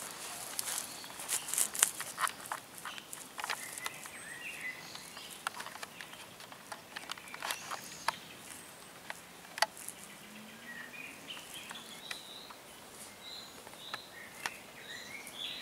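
Scattered sharp crackles and rustles, like dry leaves and twigs being stepped on, through the first two-thirds, then a small bird chirping in short high notes again and again near the end, over a faint steady background hiss.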